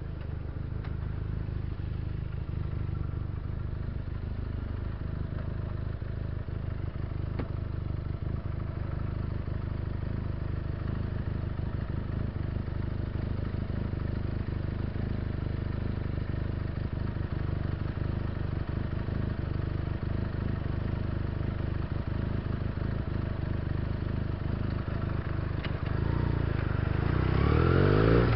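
Benelli TNT300's 300 cc parallel-twin engine running at low, steady revs while the motorcycle rides along. Near the end it revs up, its pitch rising as the bike accelerates.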